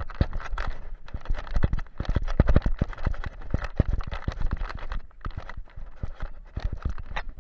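Camera strapped to an Alaskan Malamute's harness knocking and rattling as the dog trots, giving a steady run of irregular thumps and clicks.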